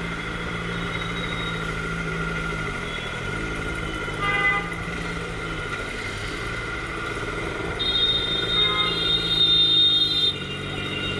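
Motorcycle engine running steadily on the road, with a short horn toot about four seconds in and a longer, louder horn blast from about eight to ten seconds in.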